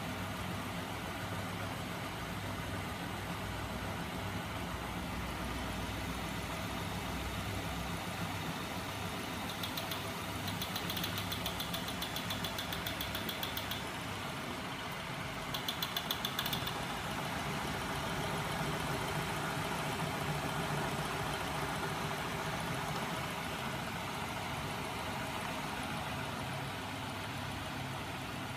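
Homemade magnet-engine rig driven by a 12 V DC electric motor, running steadily with a mechanical whir from its spinning wheels and crankshafts. About ten seconds in, a fast, high ticking rattle joins for a few seconds, then returns briefly around sixteen seconds.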